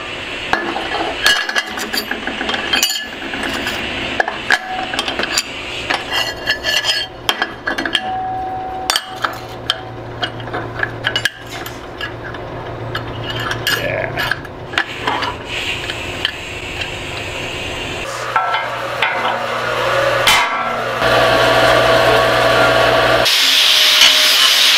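Metalworking on steel parts: hand tools clinking, knocking and scraping, with a steady low electrical hum through much of it and a harsher, hissing stretch near the end.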